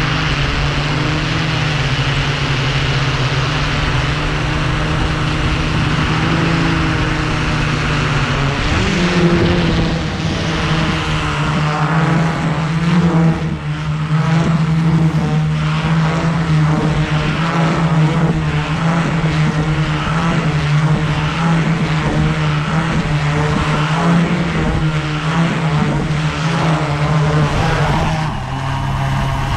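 Electric motors and propellers of a DJI S900 hexacopter running in flight, a steady hum. About nine seconds in, its pitch steps up, and from then on the hum wavers and pulses unevenly, as the craft flies on after one of its six motors has stopped and comes down into the grass.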